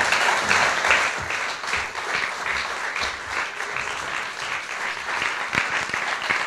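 Audience applauding: a dense, steady clapping from a crowd.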